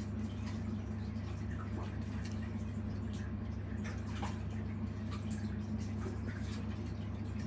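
A young sailfin lizard munching its food: faint, irregular little clicks and snaps over a steady low hum.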